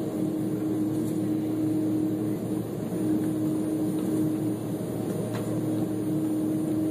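Steady cabin drone of a jet airliner taxiing, heard from inside the cabin, with a steady hum running through it that drops out briefly a couple of times.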